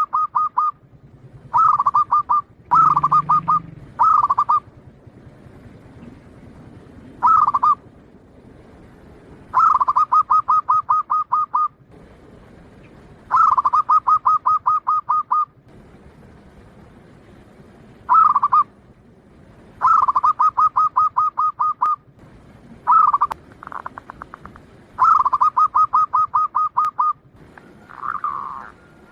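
Zebra dove (perkutut, the Bangkok-bred type) cooing. It repeats phrases of quick staccato coos, about five notes a second, each phrase lasting one to two seconds with short pauses between.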